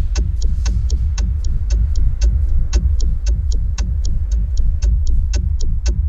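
Music with a steady ticking beat, about four ticks a second, over a heavy, deep bass.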